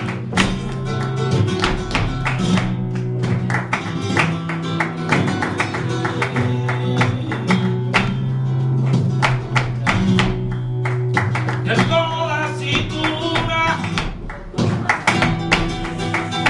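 Live flamenco bulerías: a flamenco guitar played with palmas, rhythmic hand clapping, sharp and fast over the strumming, and a man singing cante at times.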